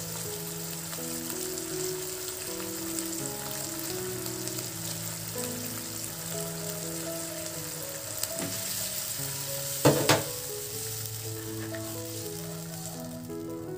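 Onion, chilli and oyster sauce sizzling in hot oil in a nonstick wok while a spatula stirs them, a steady frying hiss. About ten seconds in come two sharp knocks close together, the loudest sounds.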